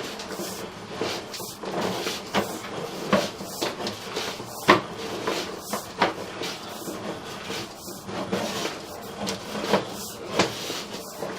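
Sewer inspection camera being pushed through a freshly lined 3-inch sewer pipe: irregular knocks, clicks and scraping, about one or two a second.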